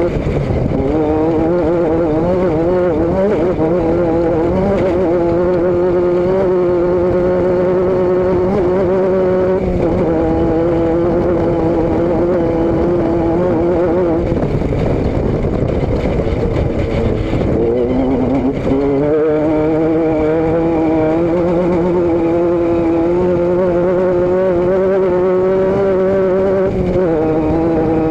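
Vehicle engine and exhaust running under way, holding a steady pitch, easing off about fourteen seconds in, then climbing back up in pitch as it accelerates about four seconds later and settling steady again.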